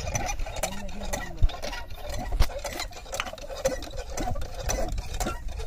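Irregular metallic clicks, taps and knocks as tools and parts are handled on a small irrigation pump engine that is not running. The two sharpest knocks come about a second and a half and two and a half seconds in.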